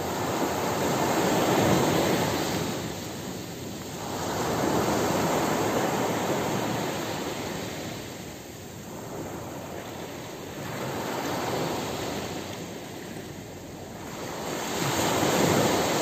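Sea surf breaking and washing up a sandy beach, a hiss that swells and fades with about four waves.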